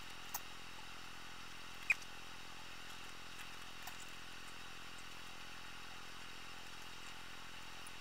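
Steady faint hiss with a few light clicks, the sharpest a short squeaky tick about two seconds in.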